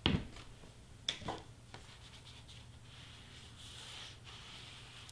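A thump, a lighter knock about a second later, then soft rubbing and scraping of hands handling crafting sheets on a table.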